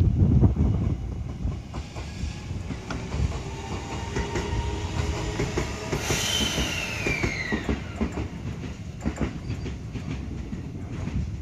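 E653-series limited express electric train pulling out at low speed, with a low rumble and wheels clicking over the rail joints. About six seconds in, a high squeal falls in pitch for a couple of seconds.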